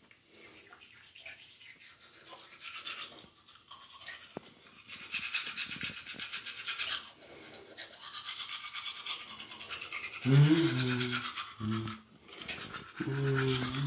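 Manual toothbrush scrubbing teeth in quick back-and-forth strokes, a wet, scratchy bristle sound. Twice near the end a man's muffled voice sounds through the brushing.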